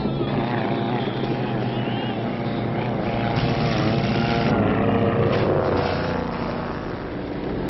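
VW-engined gyrocopter in flight: the engine and propeller drone continuously, the pitch wavering up and down.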